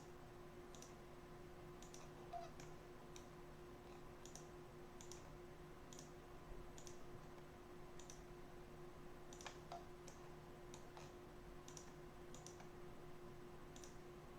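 Faint computer mouse clicks, single and irregularly spaced at roughly one a second, over a steady low electrical hum.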